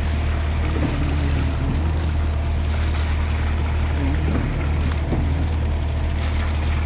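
Concrete mixer truck's diesel engine running steadily during a concrete pour, a constant low hum.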